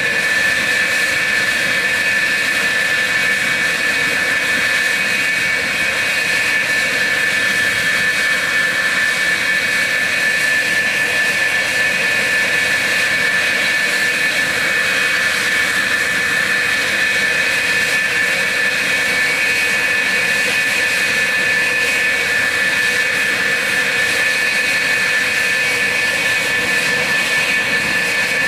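F-4F Phantom II's General Electric J79 turbojets idling on the ground after a cartridge start: a loud, steady high whine over a rushing hiss.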